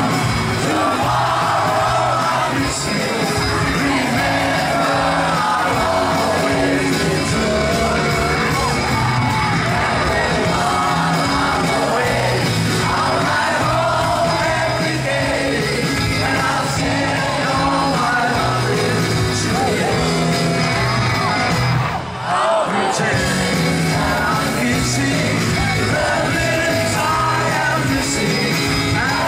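Live rock concert: a man sings lead vocals over a band with electric bass and guitar, with yells from the crowd. The sound dips briefly about three quarters of the way through.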